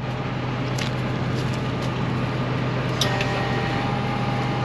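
Tractor engine idling steadily, with a few light clicks and knocks over it, one about three seconds in.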